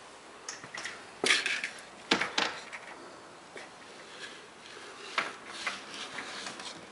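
Vertical window blind slats clacking and rattling as they are pushed aside. Two loud clusters of knocks come a little over a second and about two seconds in, with lighter taps later.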